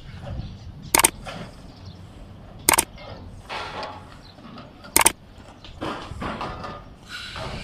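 Three loud, sharp metallic clangs, each ringing briefly: one about a second in, one near three seconds, and one about five seconds in. Beneath them runs a low background of construction work.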